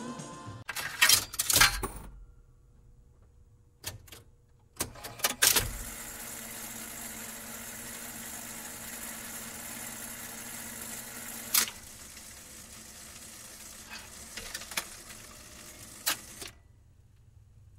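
Jukebox clicking and clunking several times in the first few seconds, then the steady crackle and hiss of a needle on a vinyl record with a faint low hum. There is a sharp click about two-thirds in and a few softer ticks, and the crackle cuts off shortly before the next song.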